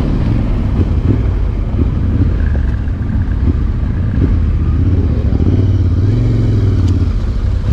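Trail motorcycle engine running steadily, a low drone that holds through.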